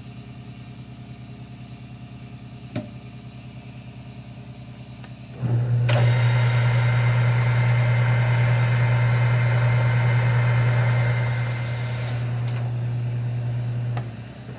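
A small metal lathe switched on about five seconds in, spinning a tap held in its chuck with a steady low motor hum. The hum drops a little in level, then stops near the end. A single sharp click comes before the lathe starts.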